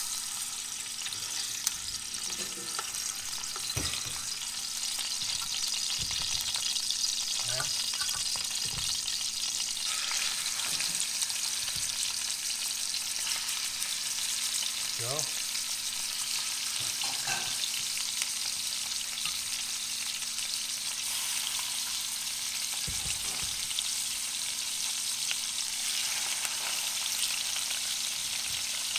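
Chicken thigh pieces sizzling steadily in hot olive oil in a metal pan, with a few short knocks as more pieces are laid in with tongs.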